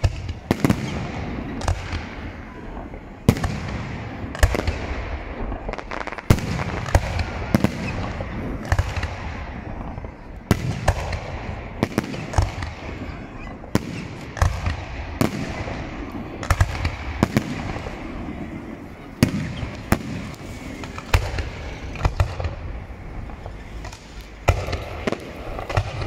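Aerial fireworks display: shells bursting overhead one after another, about one to two sharp bangs a second, over a continuous rumble.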